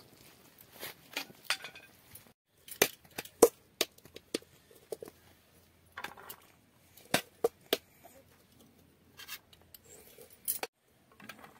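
A steel skimmer tapping and scraping on a plate as rice is served: a string of sharp, separate clinks.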